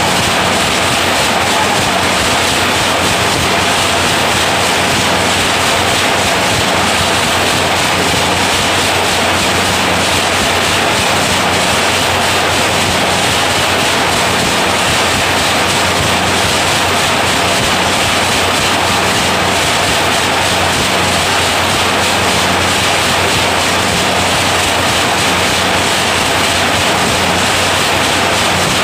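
Automatic wire nail making machine running: a loud, steady, dense mechanical clatter that does not let up.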